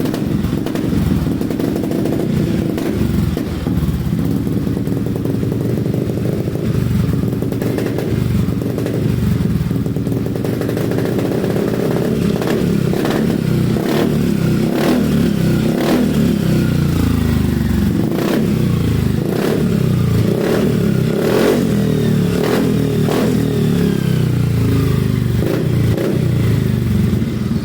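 Yamaha XMAX 300 scooter's single-cylinder engine running through an aftermarket exhaust with its switchable valve open for the loud mode: steady idle at first, then blipped repeatedly from about halfway through.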